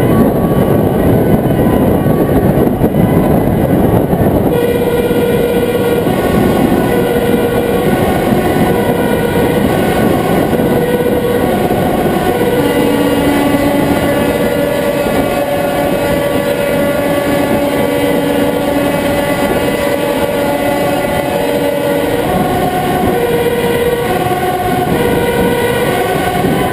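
Two-tone emergency sirens alternating between a high and a low note, over loud engine and road noise of a fire engine driving through a road tunnel. The sirens stand out more clearly from about four seconds in.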